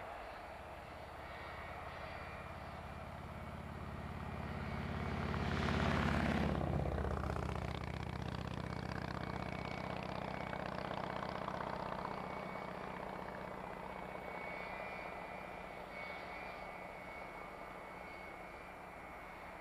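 Boeing 757 jet engines during the landing rollout. The sound swells to its loudest about six seconds in, dropping in pitch as the aircraft passes, then carries on as a steadier jet rumble that slowly fades as it rolls away.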